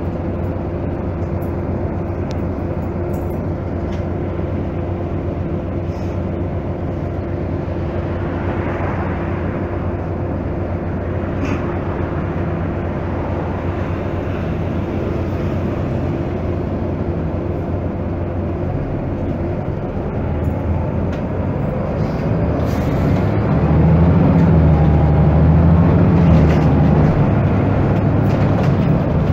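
Volvo 7000A articulated city bus's Volvo D7C six-cylinder diesel engine and ZF 5HP592 automatic gearbox running with a steady hum. From about twenty seconds in it grows louder as it accelerates, with a faint rising whine.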